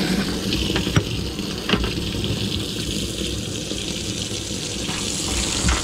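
Water running and spraying steadily into a bass boat's livewell, a hissing splash, with a few light knocks from handling around the compartment.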